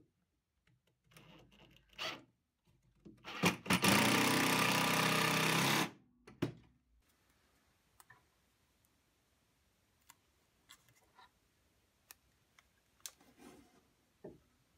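Cordless drill with a countersink bit running for about two and a half seconds, boring a pilot hole into a wooden shelf brace. Short handling clicks and knocks come before and after it.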